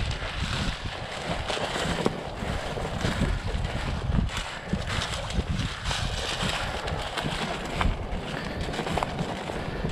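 Dry soybean plants rustling and brushing against someone walking through a standing bean field, swelling and fading with each stride, with wind rumbling on the microphone.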